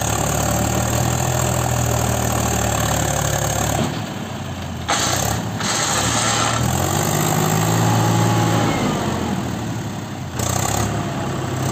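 Mahindra 265 DI tractor's three-cylinder diesel engine revving hard under load as the tractor, stuck in mud, strains to pull a heavily loaded trolley. Its pitch sags twice and climbs again about six to eight seconds in, over a rough hiss that comes and goes.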